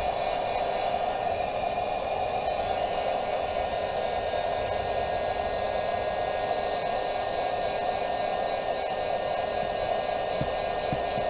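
Electric heat gun running steadily on its low setting, a constant blowing hum.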